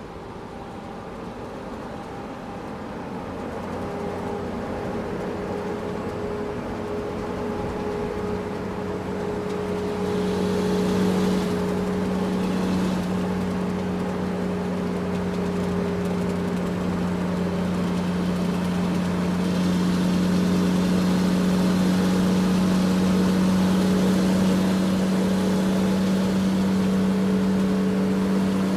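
Large truck driving, its engine running with a steady hum that grows louder over the first ten seconds or so and then holds, with road hiss building beneath it.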